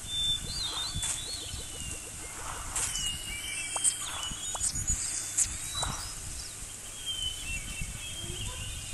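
Outdoor nature ambience: birds chirping in short high whistles over a low, irregular thudding of many hooves from a running herd of giraffes.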